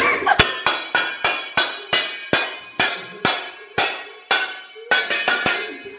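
Background music of quick, evenly spaced bright struck notes with a ringing tone, about four a second, starting suddenly.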